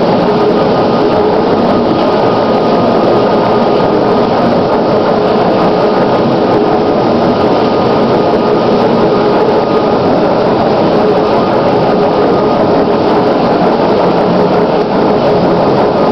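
Vertical boring mill running as it turns a large-diameter metal ring: a loud, steady machine drone with a constant hum, unchanging throughout.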